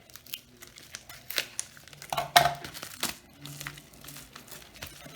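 Packaging wrap crinkling and tearing as a card repack is unwrapped by hand: irregular crackles with a few sharper snaps, the loudest about two and a half seconds in.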